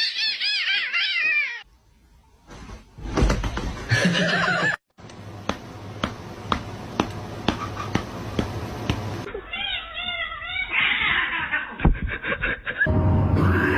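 Cat meowing and yowling in quick repeated calls, once at the start and again about ten seconds in, between other short clips that include a steady run of clicks about two a second.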